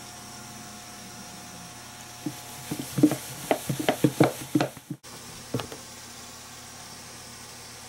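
Chicken pieces shaken in a lidded plastic tub of seasoned flour: a quick run of about ten soft thuds, roughly four a second, as the pieces knock against the tub, then one more thud a second later.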